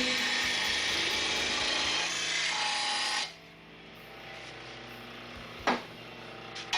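Blade grinder's abrasive wheel grinding the edge of a lawn mower blade: a steady harsh hiss that cuts off about three seconds in as the grinding stops, leaving a quieter hum. A sharp metal clank follows near the end, with a smaller one just after.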